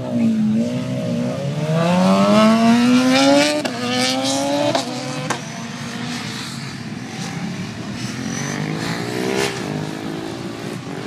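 Sport motorcycle engine pulling away hard, revs climbing and dropping sharply at three quick upshifts a few seconds in, then fading. Near the end another bike revs up and shifts.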